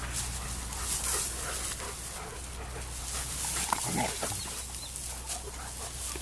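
German Shepherds scuffling in grass as one dog corrects another: rustling and the thud of paws, with a short dog vocalisation about four seconds in.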